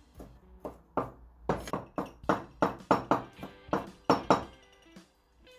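A broad, cleaver-like vegetable knife chopping folded parsley on a plastic cutting board: a run of sharp knocks, about three or four a second, stopping about five seconds in.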